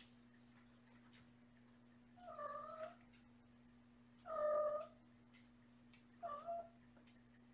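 A domestic cat meowing three times, each call under a second long, the middle one the loudest, over a faint steady hum.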